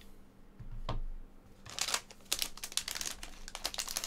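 Red metallic foil trading-card pack crinkling and crackling as it is torn open by hand, a dense run of sharp crackles starting a little before halfway, after a single soft tap about a second in.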